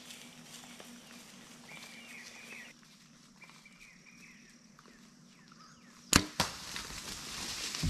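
A Mathews Phase 4 compound bow is shot: a sharp loud crack of the string release about six seconds in, a second smack about a third of a second later as the Grim Reaper broadhead strikes the hog, then a rising rush of noise as the hogs scatter.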